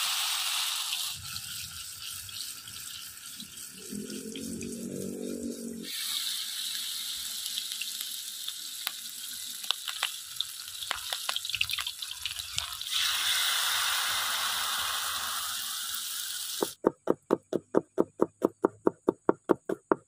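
Battered takokak berries and leaves frying in hot oil in a wok: a steady sizzle with scattered crackles and pops. Near the end, a knife chops on a cutting board in quick even strokes, about four a second.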